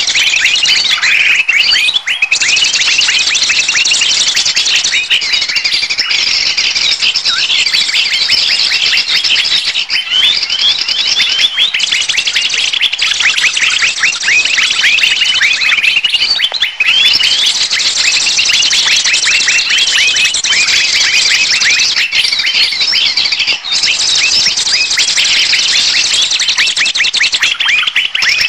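Bird-lure recording: a loud, unbroken chorus of many small birds chirping rapidly over one another in quick high-pitched notes, the kind of noisy flock sound trappers play to draw birds in.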